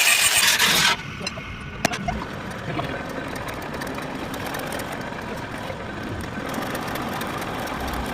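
Metal-turning lathe running steadily. A loud hiss fills the first second and cuts off suddenly, and there is a single sharp click just before two seconds in.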